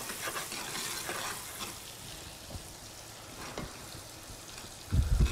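Sliced zucchini and carrots sizzling in bubbling butter in a frying pan, with light clicks of tongs turning them against the pan. A loud, low thump comes about five seconds in.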